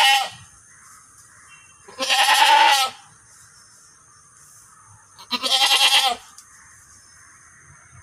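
Crossbred doe goat bleating: the end of one bleat right at the start, then two long bleats about three seconds apart, each lasting nearly a second.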